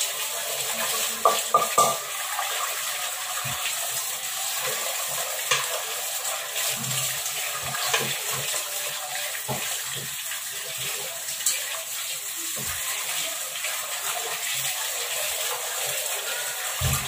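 Water running and splashing in a sink while a rice pot is rinsed and rubbed out by hand with water only, no soap. The pot knocks against the sink now and then.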